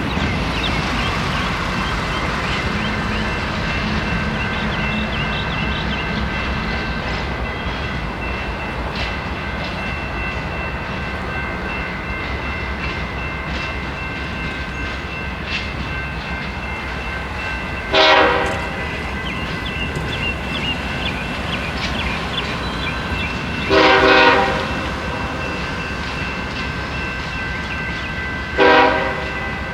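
Train rolling by with a steady rumble and a few steady high tones. Its locomotive air horn sounds three times: short, longer, then short again, over the last third.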